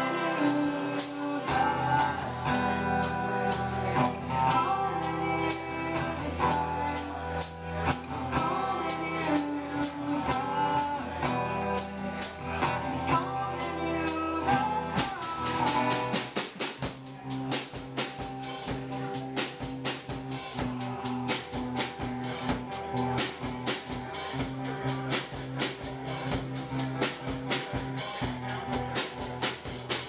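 Small rock band playing live: acoustic and electric guitars over a drum kit, with a sung melody through the first half. About halfway in the singing stops and the drums carry a steady, driving beat.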